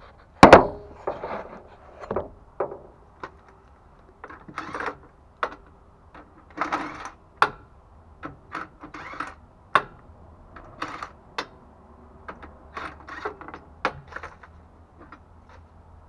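Irregular metal clinks, knocks and short scrapes of hand tools on the clamps and nuts of a Dayton spoke wheel hub, with a loud knock about half a second in.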